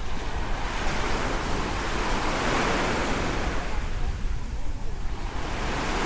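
Small waves breaking and washing up a sandy shore: one wash swells and fades over about three seconds, and the next begins to build near the end.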